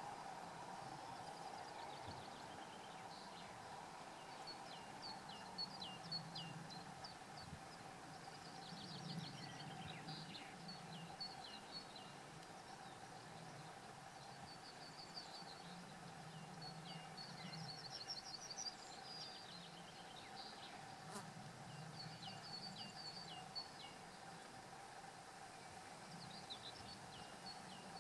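Faint outdoor ambience: small birds singing in short repeated chirps and trills, over a steady faint buzz, with a single click about three-quarters of the way through.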